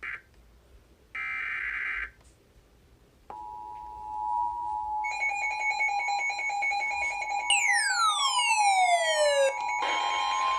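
Emergency Alert System alert starting: short screeching bursts of digital header data, then the steady two-tone attention signal from about three seconds in. Further alert tones join a couple of seconds later, some pulsing and one falling sweep, so the alarm grows louder.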